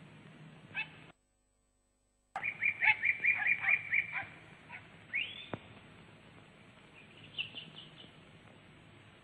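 Small birds chirping: quick runs of high chirps, about six a second, then a single rising whistle and a few higher chirps, over a faint hum. The sound cuts out completely for just over a second about a second in.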